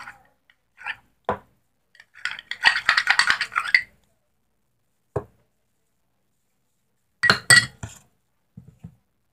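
A metal utensil clinking and scraping against a bowl as foamy shaving-gel slime is scooped out: scattered knocks, a busier stretch of rapid clatter about two to four seconds in, and a few sharp clinks near the end.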